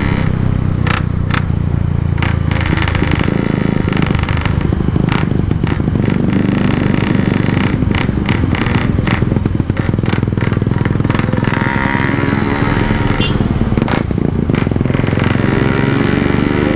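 Yamaha RX-King's 135 cc two-stroke single on an aftermarket Packing Power exhaust, being ridden, its revs rising and falling. It runs on a new 26 mm carburettor whose main and pilot jets the rider judges far too lean.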